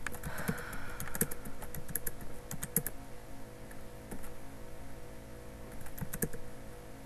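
Typing on a computer keyboard: irregular runs of key clicks, with a lull about halfway through before the typing picks up again.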